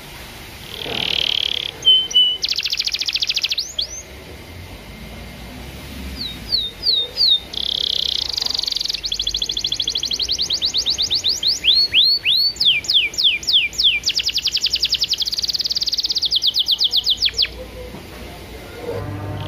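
Domestic canary singing a long, varied song of fast trills, runs of rapid repeated notes and quick down-sweeping whistles, broken by short pauses.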